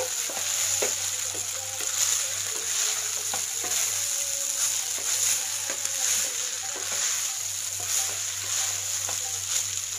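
Boiled rice and chopped vegetables sizzling in a hot kadai while a spatula stirs and folds them, with scattered scrapes and taps of the spatula against the pan.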